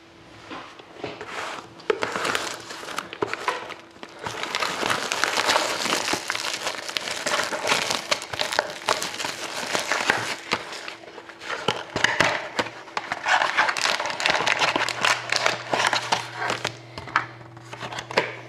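Wrapping on a box of trading cards crinkling and tearing as it is opened by hand, a dense run of crackles and sharp snaps.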